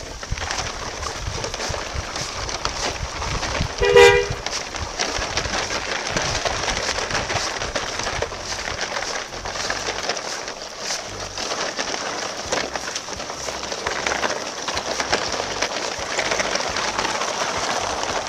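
A single short horn toot about four seconds in, over steady background noise with scattered light clicks and rattles.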